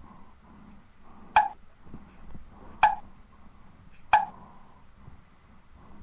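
Three sharp clicks about a second and a half apart, each with a short ringing tail, over a faint low rumble of surf.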